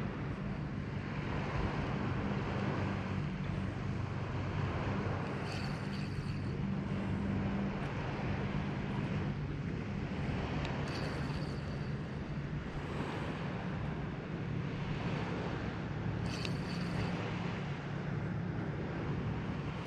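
A motor engine running steadily with a low, even hum. A few brief faint high-pitched sounds come now and then.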